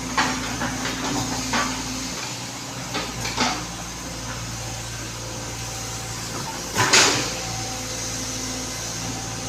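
A steady machine hum with irregular knocks and scraping impacts, the loudest about seven seconds in.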